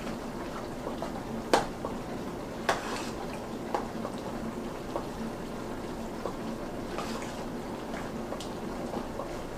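Metal spoon stirring a wet macaroni-and-cheese mixture in a stainless steel pot, with a few sharp clinks of the spoon against the pot over a steady low hiss.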